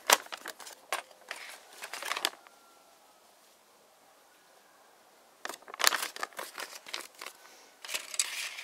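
A paper instruction sheet rustling and crinkling as it is handled, unfolded and folded, with sharp crackles. It comes in two spells, one at the start and one from about five and a half seconds in, with a few quiet seconds between.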